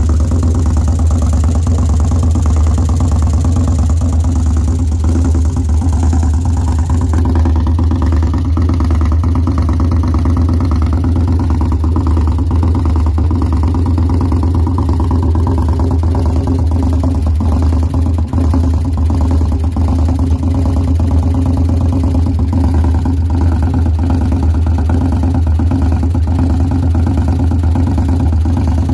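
Victory Freedom 106 V-twin motorcycle engine idling steadily with a tick, which the owner suspects comes from bad lifters.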